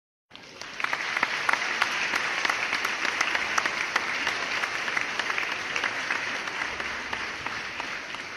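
Audience applauding: dense, many-handed clapping that starts suddenly, swells to full strength within the first second, then slowly dies down near the end.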